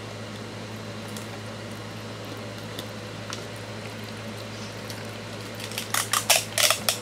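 Steady low hum of room tone. Near the end comes a quick run of about eight sharp clicks and taps.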